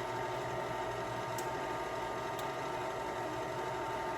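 A steady mechanical hum with hiss, with two faint clicks in the middle.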